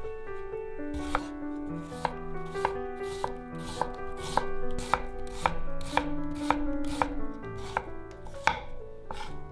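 Chef's knife slicing a peeled onion half on a wooden cutting board: the blade knocks the board in even cuts about twice a second, starting about a second in.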